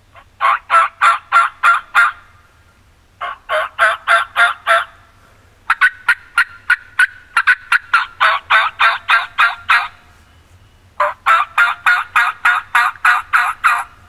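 Freaky Hen II latex diaphragm turkey mouth call with a crown-cut split-V reed, blown in four runs of hen-turkey yelps, evenly spaced at about four notes a second. The tone is deep and a little raspy; the third run is the longest.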